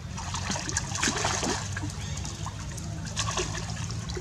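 Water splashing as macaques swim and play in a pond, with a burst of splashing about a second in and another near the end, over a steady low hum.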